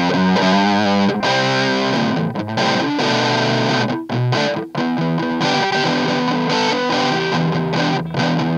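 Les Paul-style electric guitar with humbucker pickups played through an Audio Baron TG-30 30-watt amp with an 8-inch speaker on its crunch channel: a distorted, blues-type crunch riff of chords and single notes, with a couple of brief stops.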